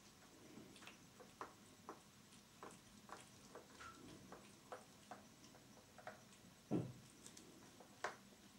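Faint, irregular ticks and light splashes of water in a tub as cats paw at a swimming toy robo fish, with one louder thud about two-thirds of the way through and a sharp click near the end.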